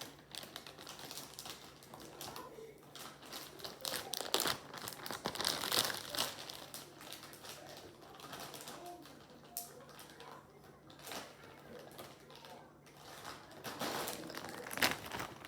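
Plastic bag crinkling and rustling as it is handled, with irregular sharp crackles, loudest about four to six seconds in and again near the end.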